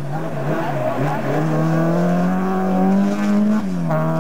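Small hatchback rally car's engine pulling hard past on a dirt stage, its pitch climbing steadily, then falling suddenly near the end and running on lower.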